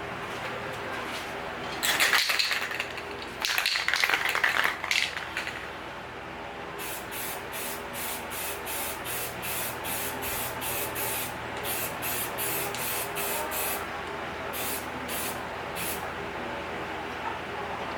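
Aerosol can of flat black Bosny spray paint hissing as it is sprayed onto a motorcycle exhaust pipe: two longer bursts, then a run of short quick bursts, about two a second.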